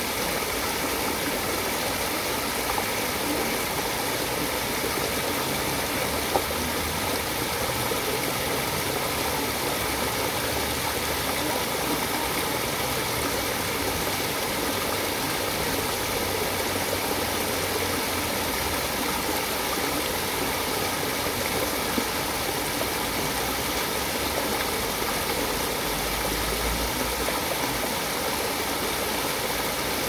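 Water rushing and splashing steadily as it spills in small cascades over rocks into a shallow stream.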